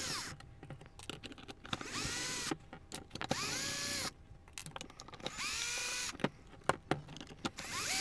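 Low-powered cordless drill driver backing out small screws, run in about five short bursts, each spinning up to pitch and holding for under a second, with clicks of handling in between.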